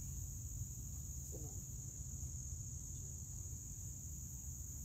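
Steady high-pitched insect chorus over a constant low rumble, with a brief faint murmured voice about a second and a half in.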